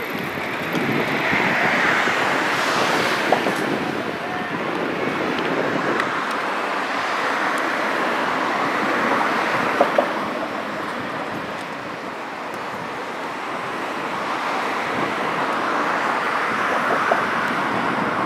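Steady road-traffic noise from passing vehicles, swelling and fading every several seconds, with a few short sharp knocks.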